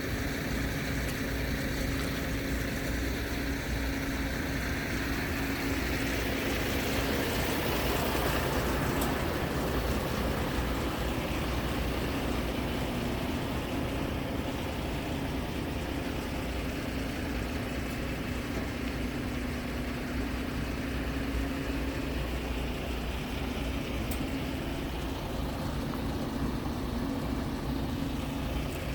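Scania R tractor unit's diesel engine idling steadily, a little louder for a few seconds around eight seconds in.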